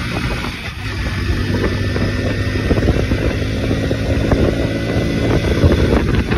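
Hero motorcycle's single-cylinder four-stroke engine running under way, with wind rush over the microphone.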